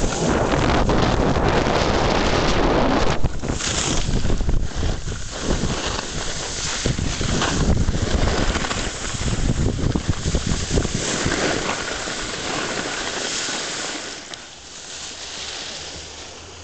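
Wind buffeting the microphone of a camera carried by a skier going downhill, mixed with the hiss and scrape of skis on packed snow. It eases off near the end as the pace drops.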